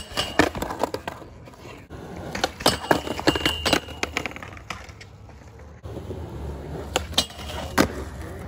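Skateboard striking and sliding on a low steel rail: a series of sharp clacks, with a bunched run and a brief ringing metal tone about three seconds in, then a few scattered clacks of the board on concrete.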